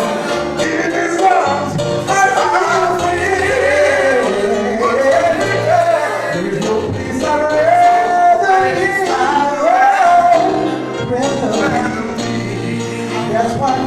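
Gospel worship song: voices singing a melody over instrumental accompaniment with a held bass line.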